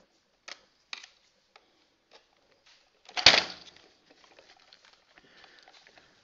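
Handling noises from a plastic toy robot and a cardboard insert: a few light clicks, a louder knock with a crackle about three seconds in, then faint rustling and ticking.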